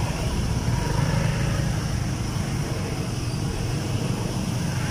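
Small motorbike and scooter engines running steadily, a low even hum.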